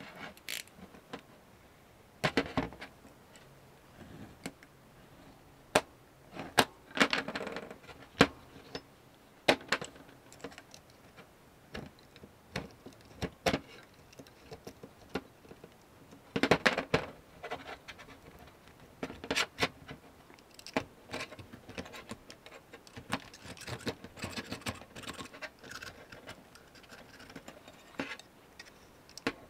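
Handling noises of a meat cleaver and tools on a metal workbench: scattered clicks and knocks with short scrapes and rustles as blue tape is wrapped around the blade and trimmed with a utility knife. A few knocks are louder than the rest.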